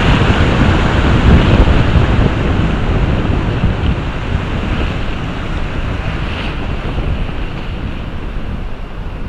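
Wind rumbling on the microphone over sea surf washing against the shore, gradually getting quieter.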